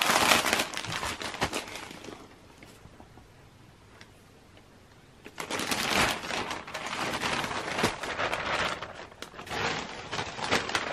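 Plastic poly mailer bag crinkling and crackling as it is handled and opened, with a quieter pause of about three seconds in the middle.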